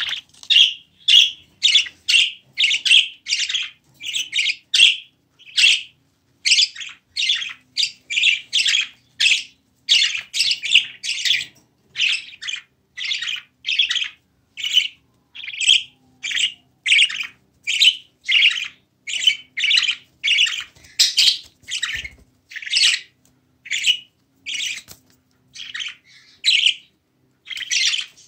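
Budgerigar calling insistently: a long, unbroken series of short, harsh chirps, nearly two a second.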